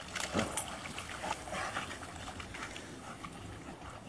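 A dog splashing as it wades through shallow water, with a run of short, sharp splashes.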